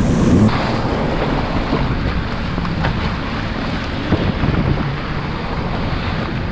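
Wind buffeting the microphone over surf, with a jet ski engine running underneath.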